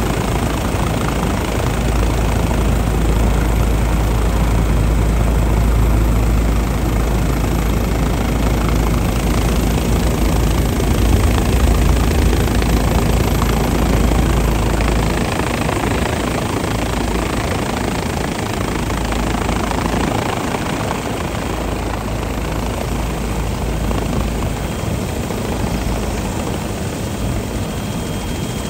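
MD Helicopters MD 530F light turbine helicopter hovering: steady rotor and turbine noise, with a deep rumble that weakens about halfway through.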